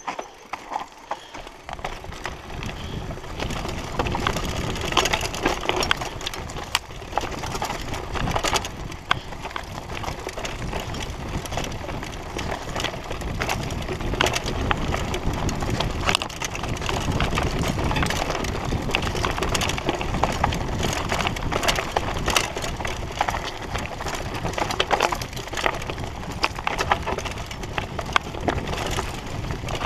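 Mountain bike riding fast down a rough dirt singletrack: the bike and its handlebar-mounted camera rattle and clatter without pause over bumps, over a low rumble of tyres on dirt that comes in about a second and a half in.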